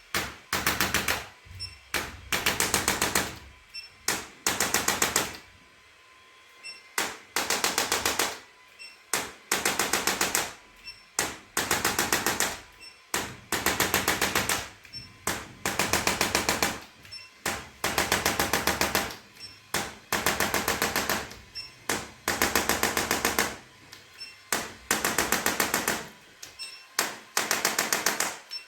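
Handheld percussive device tapping rapidly in short bursts, each about a second long and growing louder, repeating about every two seconds.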